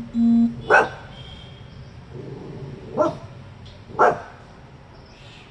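Small long-haired dog barking three times, sharp single barks at passers-by below. A short steady beep-like tone sounds at the very start, just before the first bark.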